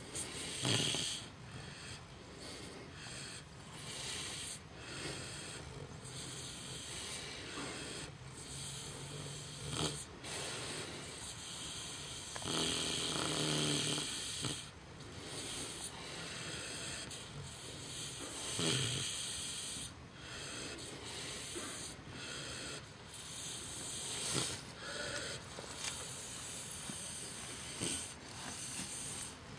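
A sleeping micro pig snoring loudly in rough, rasping breaths, swelling every few seconds.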